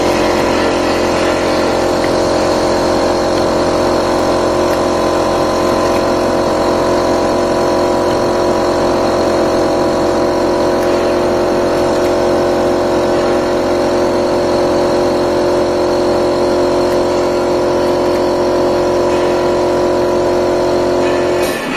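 Semi-automatic round-bottle labeling machine running: a steady electric motor hum with a few fixed tones, which stops abruptly near the end.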